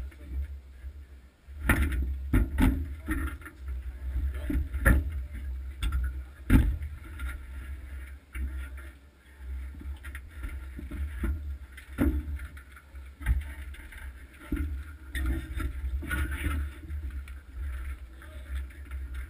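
Irregular knocks and clatter on a stationary bobsleigh, the loudest about six seconds in, over a steady low rumble.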